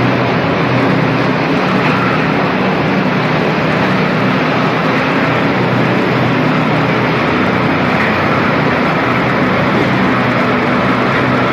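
A steady engine drone with a constant low hum and a wide hiss, unchanging throughout.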